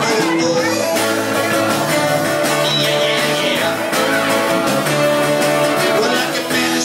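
A rock band playing: guitars over drums, with a steady beat.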